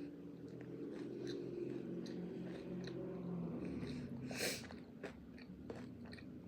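A person chewing food close to the microphone, with many small wet mouth clicks and one short crisp noise about four and a half seconds in.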